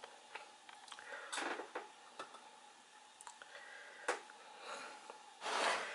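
Faint handling sounds of an oiled pastry-crust roll being rolled back and forth in a glass baking dish: soft rubbing with scattered small clicks, a sharper click about four seconds in, and two brief louder swishes.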